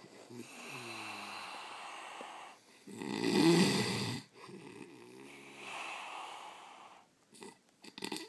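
An animal snoring in slow breaths: a drawn-out buzzing snore, then a louder, rougher breath about three seconds in, then another buzzing snore, with a few short clicks near the end.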